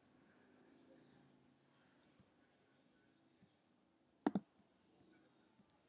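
Near silence with a faint, high, evenly pulsing tone, about six pulses a second. About four seconds in comes a single sharp click of a computer pointing device as a dialog button is pressed.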